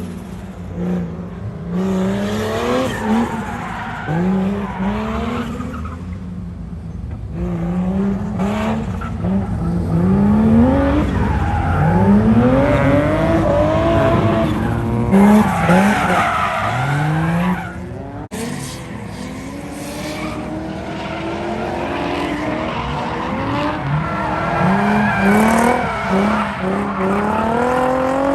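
A drift car on track: its engine revs up and down in repeated rising and falling sweeps, with tyres skidding and squealing. The sound drops out briefly about 18 seconds in.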